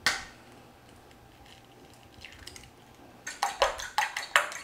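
An egg knocked once against the stone countertop to crack it, then, from about three seconds in, a fork beating eggs in a bowl: quick clinks against the bowl, about five a second.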